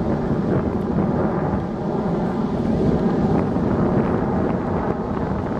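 Steady low rumble of a formation of Canadair CT-114 Tutor jets passing overhead, each powered by a single J85 turbojet.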